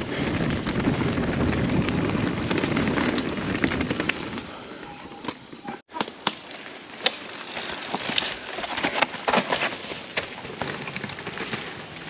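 Mountain bike riding down a trail: a steady rush of wind on the microphone and tyre noise for the first half. After a brief dropout about halfway, a run of sharp clatters and rattles as the bike goes over rough ground.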